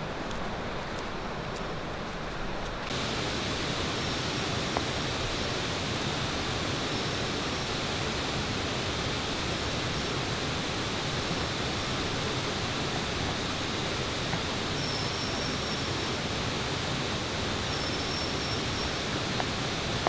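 Steady rushing of water. It fills out and gets a little louder about three seconds in, with a faint thin high tone coming and going.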